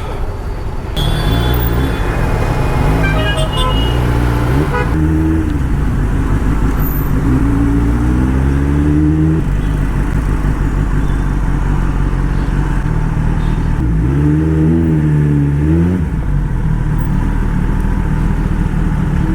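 Motorcycle engine running in traffic, rising in pitch in repeated climbs and dropping back as the bike accelerates through the gears and eases off.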